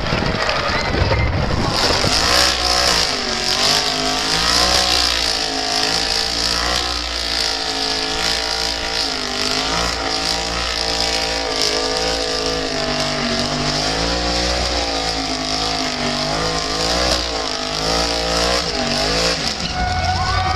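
Drag car doing a burnout: its engine is held at high revs that rise and fall unevenly, and its rear tyres spin and squeal on the track in a steady hiss. A different car sound, from a pass down the strip, comes before the burnout starts, about two seconds in.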